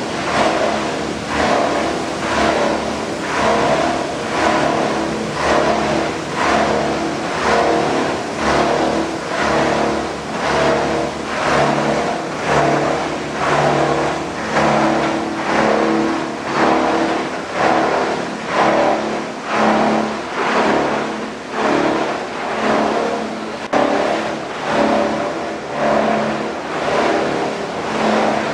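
Plastic bottle recycling line machinery running: a steady mechanical hum and rumble with a rhythmic swell about once a second.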